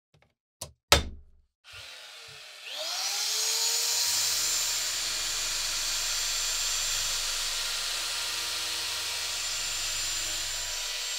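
Two sharp knocks, the second louder, then a motor spins up with a rising whine about two and a half seconds in and runs steadily: a drill-driven polishing wheel buffing the steel blade of a Bowie knife.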